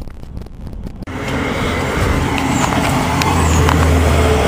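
Traffic noise that suddenly gets much louder about a second in, as a large vehicle passes close alongside; its engine hum grows steady and low near the end.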